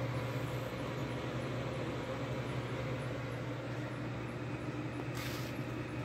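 Vintage Sharp Carousel microwave oven running on full power, a steady low hum of the oven and its fan with the turntable turning. The hum is fairly quiet. A short hiss comes about five seconds in.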